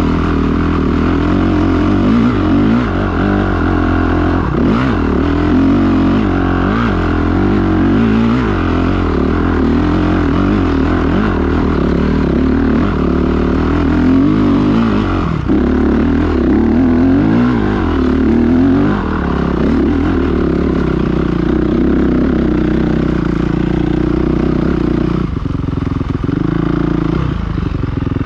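Dirt bike engine running under load as it works uphill through grass, revs rising and falling with the throttle. About 25 seconds in the engine drops to a lower, steadier note.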